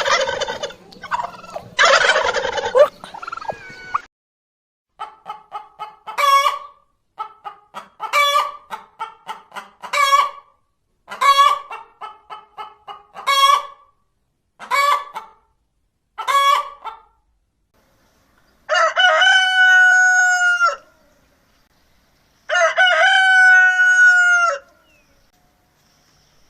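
Farmyard fowl calling. A noisy stretch of gobbling at the start gives way to hens clucking in repeated runs of short clucks, each run ending in a louder note. Near the end a rooster crows twice, each crow a long held call of about two seconds.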